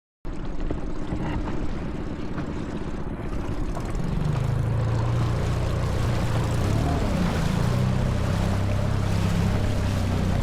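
Tohatsu 15 hp outboard motor running with the boat under way, over a steady rush of wind and water; the engine note gets louder about four seconds in.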